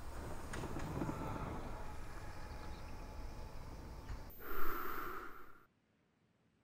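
Outdoor ambience on a golf course: a steady low background rumble with faint thin tones, then a brief, much louder sound about four and a half seconds in. The audio cuts out abruptly about a second later.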